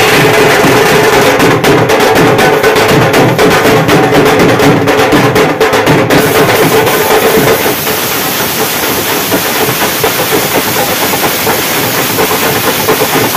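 Loud, fast, continuous drumming from a band of drums, with a steady held note over it for roughly the first six seconds.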